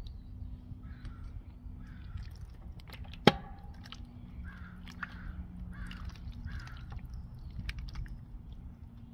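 Crows cawing repeatedly, harsh calls every second or so. A single sharp click about a third of the way in is the loudest sound, over a low steady rumble.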